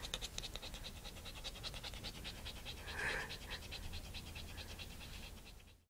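A Shiba Inu x Havanese mixed-breed puppy panting hard and fast from excitement, several quick breaths a second. A short louder sound comes about three seconds in, and the audio cuts off suddenly near the end.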